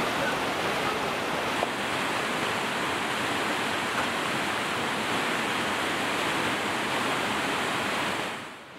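Rushing mountain stream tumbling over rocks: a steady, even rush of water that dips away briefly near the end.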